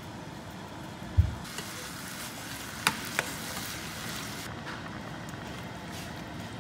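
Pork belly, garlic and kimchi frying and sizzling in a small saucepan while being stirred, with a metal utensil clicking twice against the pot. A dull thump about a second in.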